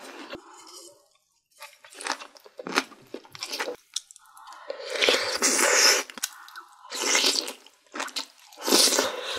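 Close-miked eating: several loud slurps of food from a spoon and chopsticks, with wet chewing and crunching between them, as Korean sundae, boiled pork and soup are eaten.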